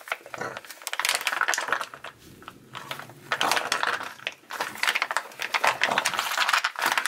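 Flexible plastic gear oil pouch crinkling and crackling as it is squeezed by hand, pressing the last of the oil through its spout into the rear differential fill hole. Two spells of squeezing with a short lull between.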